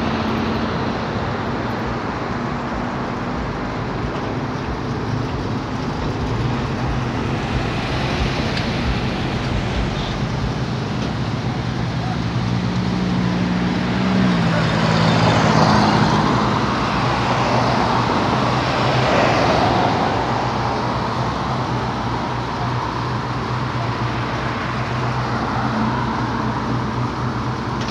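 Road traffic on a multi-lane street: cars passing one after another with swells of tyre and engine noise, loudest about 15 and 19 seconds in, over a steady low engine hum.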